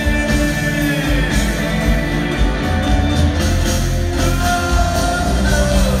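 Live Southern rock band playing loudly, with long held notes that bend in pitch over a steady bass-heavy backing.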